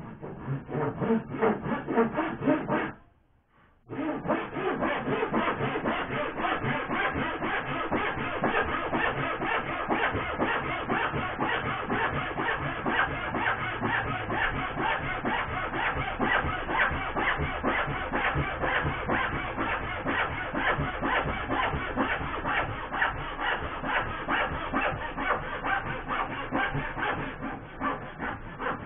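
Hand saw cutting through a softwood batten in quick back-and-forth strokes, with a short pause about three seconds in.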